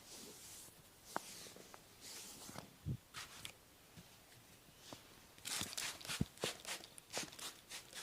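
Hands massaging bare skin: soft swishing palm strokes with scattered light slaps and pats, and a quicker run of strokes and slaps about five and a half seconds in.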